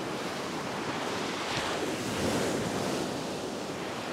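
Surf breaking and washing up the sand, with wind buffeting the microphone; the wash swells louder about one and a half seconds in.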